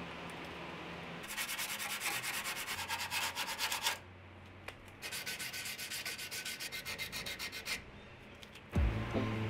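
Fast, even rubbing or scrubbing strokes against a surface, in two runs of a few seconds each with a short pause between. Loud music starts near the end.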